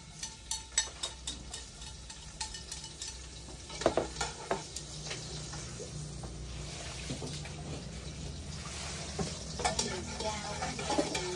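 Pieces of marinated Muscovy duck sizzling in a hot pot as they are stir-seared until firm, with a utensil clicking and scraping against the pot. The clicks come thick over the first few seconds and again near the end, while the sizzle grows steadier in between.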